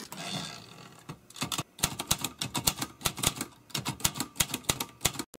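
Typewriter typing: after a short hissing noise, the keys strike in quick, irregular clicks, several a second, for about four seconds before stopping abruptly.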